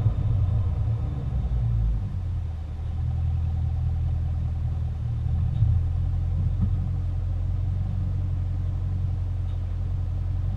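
2021 Camaro SS 1LE's V8 running through its NPP performance exhaust, dropping back from higher revs in the first couple of seconds to a steady, deep idle rumble.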